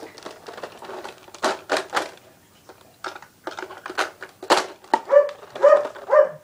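A dog barking in a quick run of barks during the last second or so, after a few sharp clicks and knocks.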